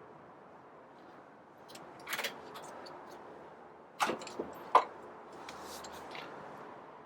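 A few light knocks and clinks over a faint steady hiss: one about two seconds in, then a quick cluster about four seconds in, the sharpest near the end of that cluster.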